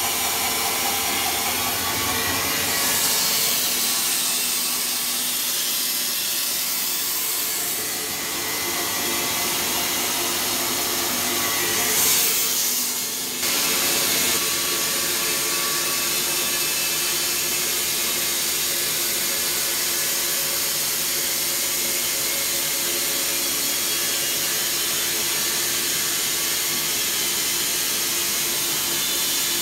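Wood-Mizer LT15 portable band sawmill running steadily, its band blade sawing through an oak log. The sound grows briefly harsher about twelve seconds in, dips for a moment, then settles back to the same steady run.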